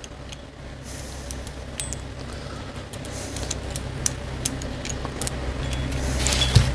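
Combination wrench turning the nut on a bearing puller, with scattered small metal clicks and clinks, as a sealed wheel bearing is drawn out of a late-model Harley-Davidson wheel hub. A steady low hum grows louder toward the end.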